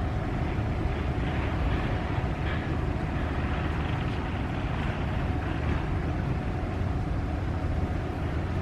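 Steady low rumble of a passing inland motor cargo ship's diesel engine, with a faint steady hum above it.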